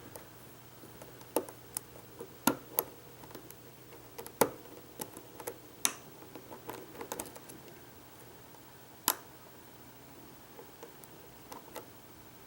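Irregular sharp metallic clicks and ticks of a hook pick working the pins of a Vachette V5 pin-tumbler lock under pry-bar tension, with a dozen or so distinct clicks, the loudest about two and a half, four and a half and nine seconds in.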